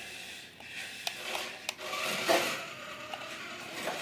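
Toy RC car's plastic body and tyres rubbing and scraping over cardboard boxes, with a few small clicks and knocks.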